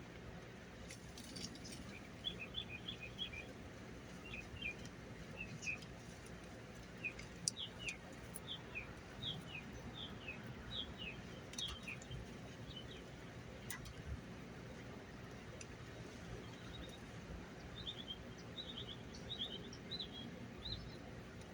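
A bird chirping in runs of short, quickly falling high notes: one stretch in the first half and another near the end, over faint outdoor hiss, with a few scattered sharp clicks.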